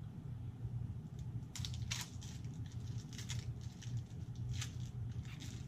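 Crinkling and rustling from handling board game cards and their packaging, in several short bursts, over a steady low hum.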